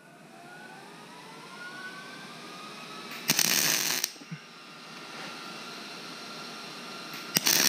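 Stick (arc) welder tacking steel: a crackling arc burst of just under a second about three seconds in, and another starting near the end.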